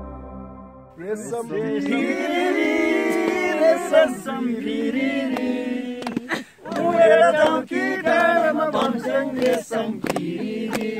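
A group of men singing together without instruments, with some sharp hand claps in the second half. A soft ambient music track fades out in the first second.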